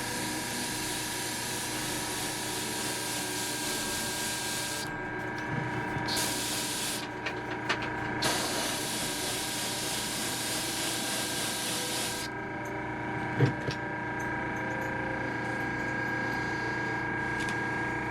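Airbrush spraying paint onto a custom lure in bursts. There is a hiss of about five seconds, a short one, then another of about four seconds, over a steady hum.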